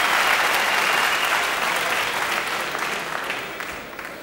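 Arena crowd applauding, dying down toward the end.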